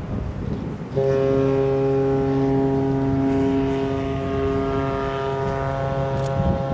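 A ship's whistle sounding one long, steady blast of several tones together, starting about a second in, with wind noise on the microphone before it.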